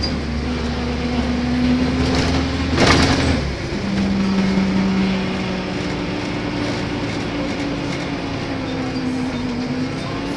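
Volvo B7TL double-decker bus heard from on board, its engine running with droning tones that shift and step in pitch: the loud groaning noises this bus makes. A short loud hiss about three seconds in.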